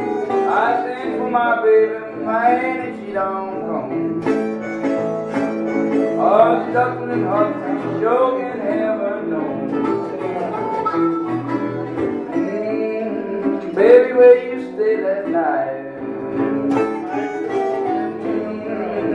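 Delta blues played on harmonica and resonator guitar: the harmonica, played into a microphone, bends notes up and down over the guitar's steady, repeating picked pattern.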